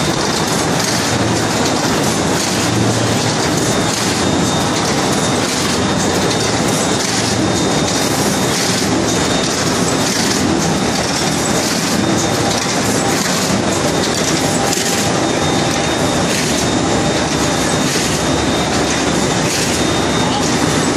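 Automatic corrugated-carton folder-gluer and stitching line running, a steady dense mechanical clatter of rollers, belts and moving parts as cardboard blanks feed through, with a faint steady high tone.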